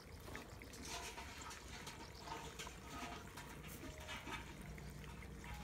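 Faint trickle of water running along a shallow field ditch, with a few soft footfalls on the dirt path.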